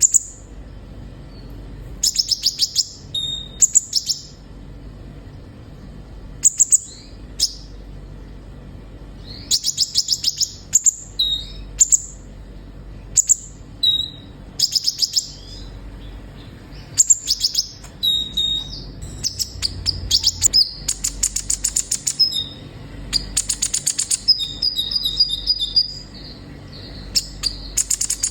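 Kolibri ninja sunbird singing: quick clusters of very high, sharp chirps and short trills, coming every second or two and running into longer, denser trills in the last third.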